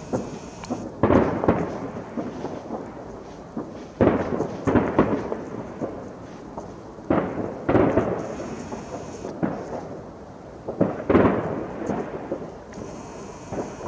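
Distant fireworks going off in a series of booms, each with a rumbling echo. The strongest come about a second in, about four seconds in, near eight seconds and about eleven seconds in.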